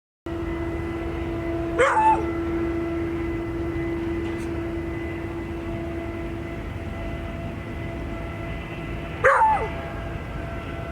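A dog barking twice, once about two seconds in and again near the end, over a steady machine hum.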